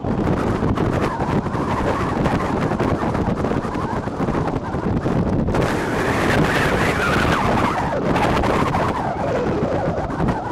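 Wind buffeting the microphone, a dense steady rumble, with a swell that rises and then falls in pitch about six to nine seconds in.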